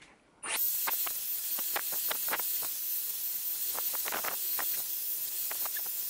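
Dyson Airwrap hair styler with its smoothing brush attachment blowing hot air on its highest settings, a steady rushing hiss that switches on about half a second in.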